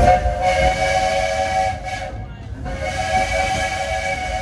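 Coal-fired steam locomotive Myron H.'s chime whistle sounding two long blasts of a steady chord of several notes, the second starting about two and a half seconds in, with steam hiss and the rumble of the train underneath.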